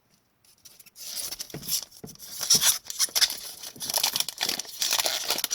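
Crinkling and tearing of a hockey card pack's wrapper being ripped open and handled, a dense crackle that starts about a second in.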